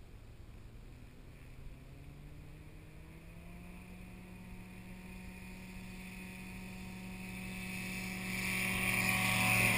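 Engine and propeller of a newly built Zenith light aircraft throttling up to takeoff power: the pitch rises two to four seconds in, then settles into a steady drone that grows louder as the plane rolls closer on its takeoff run.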